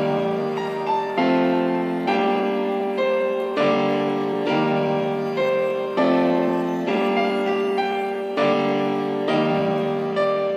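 Background music: soft piano-like keyboard chords changing about every second.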